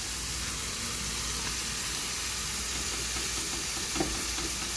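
Food sizzling on the stove: a steady frying hiss, with one light tap about four seconds in.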